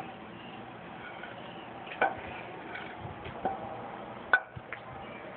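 A few short sharp knocks over steady background noise, the loudest a little after four seconds in.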